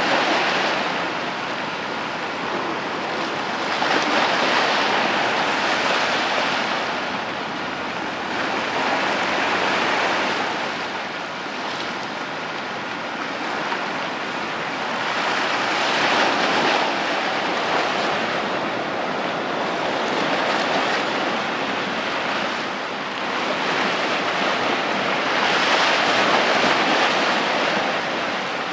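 Sea waves washing, swelling and fading about every five or six seconds.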